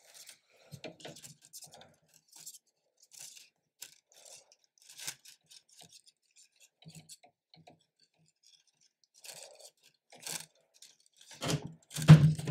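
Plastic filament and feed tube handled by hand as the filament is pushed through the tube into a 3D-printer extruder: short scattered rustles, scrapes and small clicks, with a louder stretch of knocking and rubbing near the end.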